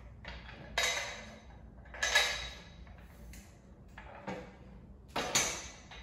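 Steel squat-rack parts and bolt hardware clanking as they are handled during assembly: three sharp metal clanks with a short ringing tail, about a second in, two seconds in and just past five seconds, and a fainter knock in between.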